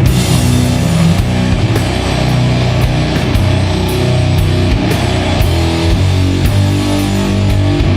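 Doom metal band playing an instrumental passage: slow, heavy distorted guitars and bass with drums and cymbal hits, no singing.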